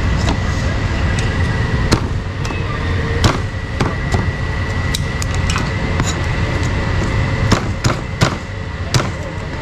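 A meat cleaver chopping on a wooden block: about ten sharp knocks at uneven intervals, over a steady low hum.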